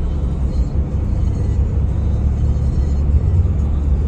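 A moving car's steady low road rumble while driving.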